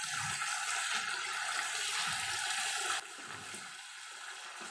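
Curry spice paste with oyster sauce and sweet soy sauce sizzling in a non-stick pan as it is stirred with a silicone spatula. About three seconds in the sizzle drops suddenly to a quieter hiss.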